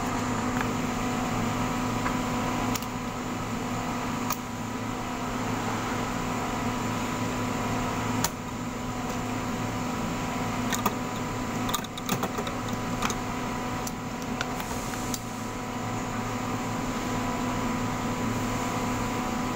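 Electric motor of a fabric cutting machine running with a steady hum, with scattered clicks and knocks.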